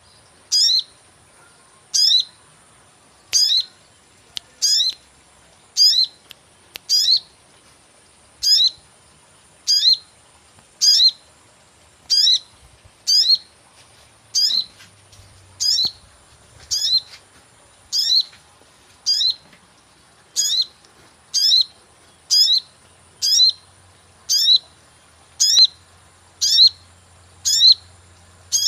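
Sogon bird lure call: a short, high 'cuit' chirp sliding quickly downward, repeated steadily about every second and a half.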